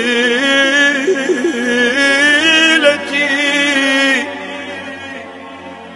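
A man's solo voice singing an unaccompanied Islamic tawshih, drawing out one long wavering melisma on a vowel. About four seconds in the voice falls away, and a quieter steady held tone carries on beneath.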